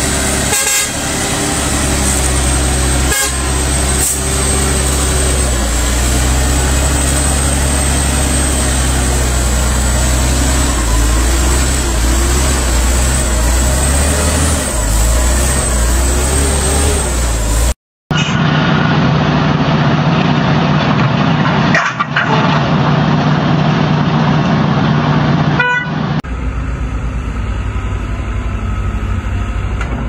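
Heavy diesel truck engines running steadily, in three separate clips cut one after another, with a brief dropout about 18 seconds in.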